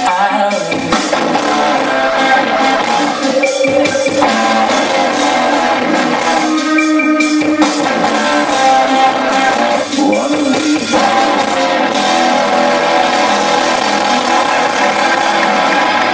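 Live industrial rock band playing loud, with electric guitar and drums, recorded from the audience.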